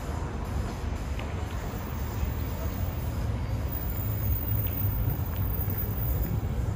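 Steady low rumble of street traffic with general city street noise, and no clear single event standing out.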